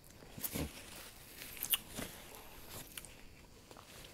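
Plastic bag of ice and rock salt being squeezed and kneaded through a cloth wrap to churn homemade ice cream, giving scattered crunches and crinkles.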